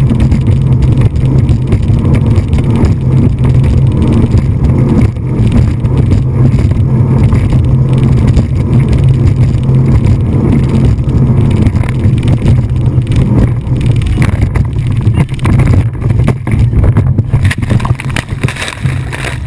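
A motorboat engine running loud and steady, a constant low drone with rushing noise above it, easing off slightly near the end.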